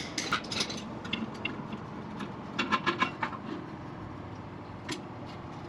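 Light clicks and knocks of a rubber drive belt and pulley being handled while the belt is worked onto a sawmill head's pulley. The clicks come in a short cluster at the start, a quicker run of ticks around three seconds in, and a single knock near the end.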